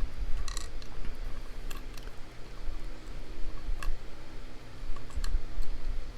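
Small metal clicks and taps of a padlock and tools being handled: a few sharp, separate clicks spread out over a low rumble of handling.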